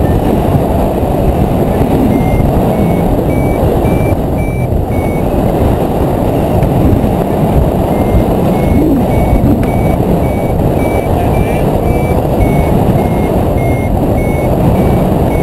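Steady rush of wind over the microphone of a tandem hang glider in flight. Over it, a flight variometer beeps in short, evenly spaced pips whose pitch steps slightly up and down. The beeps come for a few seconds from about two seconds in, pause, then resume about eight seconds in; this beeping is the variometer's signal that the glider is climbing in rising air.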